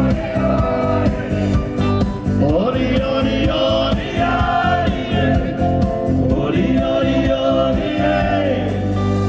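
Live band playing a dance song: electric guitar, keyboard and a steady beat with singing over it. About eight seconds in the beat drops out, leaving a held low note.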